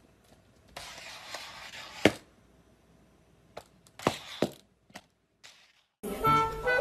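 A few sharp knocks and taps over faint hiss, the loudest about two seconds in and two more close together about four seconds in. Music begins near the end.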